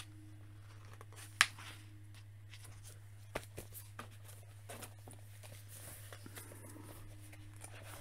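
Books being handled on a desk: one sharp snap or knock about a second and a half in, then a few lighter knocks and faint page rustling, over a steady low hum.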